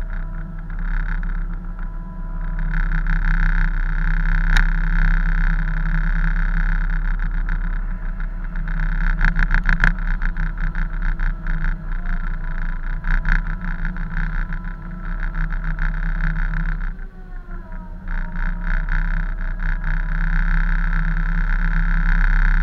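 A tug's engines and deck machinery run with a steady drone, under fluttering wind and sea noise on the microphone. About 17 seconds in, one of the machine tones slides down in pitch and then settles.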